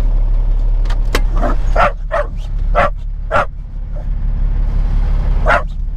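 A corgi barking repeatedly inside a truck cab, about six short barks in the first half and another near the end, over the steady low hum of the Peterbilt 379's idling diesel engine.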